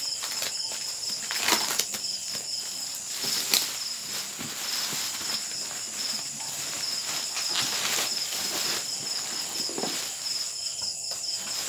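Plastic bubble wrap rustling and crackling as it is pulled off a cardboard box, with a few sharper snaps. Crickets chirp steadily underneath.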